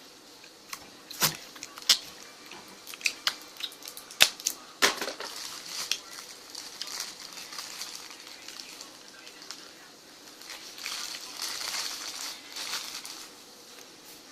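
Small plastic slime and putty tubs being handled: a run of sharp clicks and clacks over the first five seconds, then a softer stretch of rustling handling noise.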